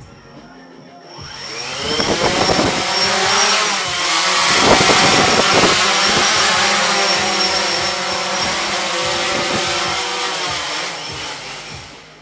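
DJI Phantom 3 Standard quadcopter's four motors and propellers spinning up about a second in with a rising whine, then buzzing loudly in flight with a wavering pitch, and winding down near the end as it lands.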